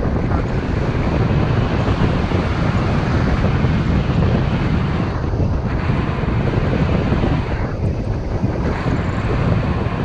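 Strong wind buffeting the microphone: a steady, deep rush of air with no engine or voice, the hiss easing briefly about halfway and again near the end.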